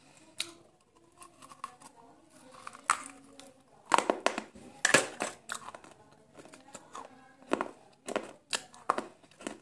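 A string of crisp crunches as pieces of baked clay (broken clay diyas) are bitten and chewed, the loudest about four and five seconds in.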